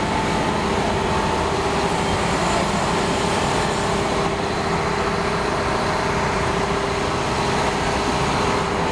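Diesel railcar of the Aso Boy limited express (KiHa 183 series) running as it rolls slowly past at close range: a steady engine drone with a held hum in it.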